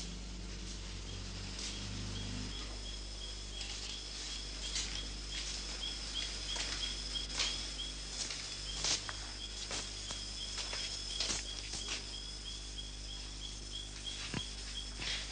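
Steady high-pitched chirping, evenly repeated, over a low continuous hum, with scattered sharp clicks throughout.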